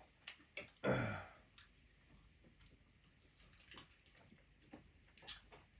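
A person sighs about a second in, a single breathy exhale that falls in pitch, followed by faint scattered clicks and mouth sounds of eating.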